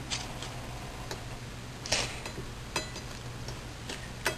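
A few small clicks and taps as fingers smooth and stretch a wet rice paper wrapper on a plate, the loudest about two seconds in, over a low steady hum.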